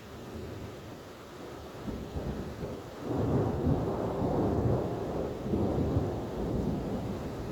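Thunder rumbling over steady rain in a summer storm. The rumble builds about two seconds in, is loudest around the middle and rolls on, slowly easing toward the end.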